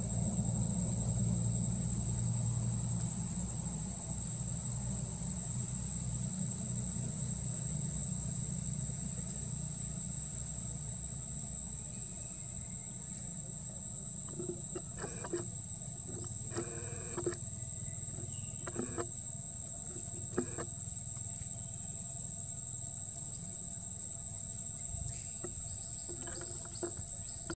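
Outdoor ambience: a steady low rumble and a steady high-pitched insect drone, with a handful of short calls in the second half.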